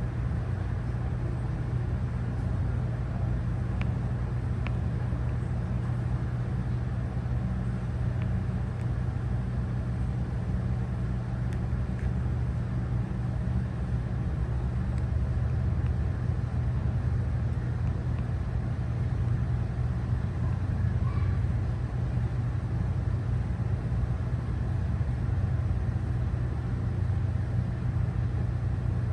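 Steady low machinery hum, even throughout, over a faint background hiss.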